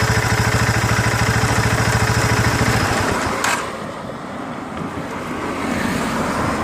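Engine held at high revs, around 6000 to 7000 rpm, in a test for spark knock ('打鐵'), with a steady rapid pulsing. About three seconds in it is let off and drops back toward idle, with a sharp click just after.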